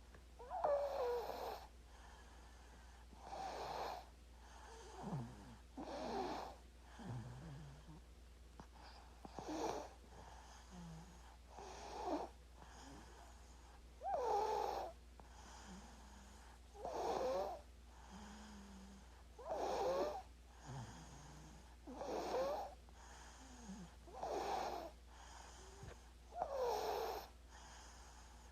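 A sleeping baby snoring, with a rough, pitched snoring breath about every two and a half seconds and softer breaths in between.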